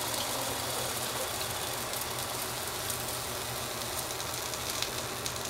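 Steady machine running noise with a low hum and a few faint ticks from the overloaded electric knife motor rig, still under power while the burnt-out motor smokes after catching fire.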